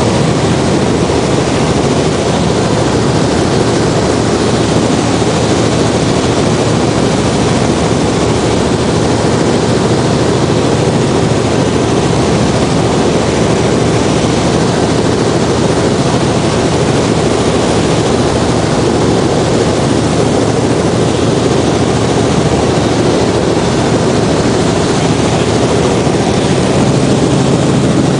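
Robinson R44 Clipper II helicopter in cruise, heard from inside the cabin: the steady, loud drone of its piston engine and rotors. A low steady hum joins near the end.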